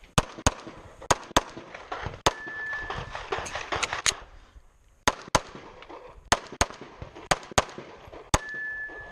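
Pistol shots fired in quick pairs, two shots per target, with a short break in the firing about four and a half seconds in.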